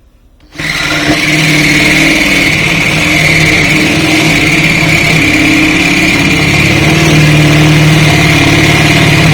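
Power drill spinning a fine-toothed hole saw into a steel barrel lid, starting about half a second in and running loud and steady with a high grinding whine. The saw grinds its teeth down rather than cutting the steel well.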